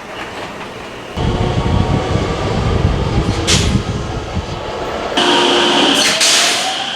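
Electric train's air compressor running, with its drain valve blowing off condensed moisture as a short, sharp hiss of air about three and a half seconds in and a longer hiss near the end: the 'shupan!' drain discharge made while the compressor builds pressure.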